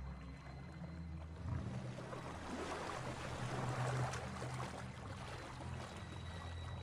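Water splashing and churning as a big cat thrashes in the water with a crocodile, building about a second and a half in and loudest in the middle.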